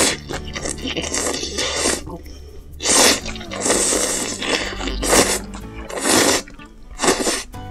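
Instant ramen noodles being slurped up from hot spicy broth: loud slurps, one at the start and then about one a second from about three seconds in, with quieter chewing and mouth sounds between them.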